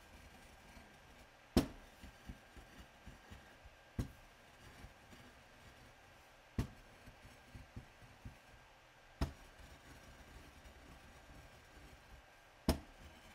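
A pigment muller on a glass slab: five sharp knocks, about every two and a half seconds, as it comes down on the glass, with small clicks between them as it is worked through the powder.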